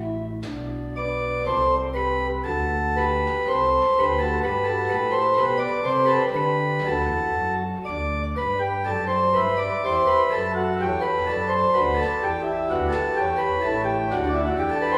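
Organ music: sustained chords held over a bass line that moves from note to note.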